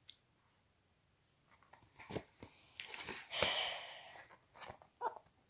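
Handling noise from a large paperback picture book: its pages rustle and the book knocks lightly as it is moved and turned, with a longer rustle about three seconds in.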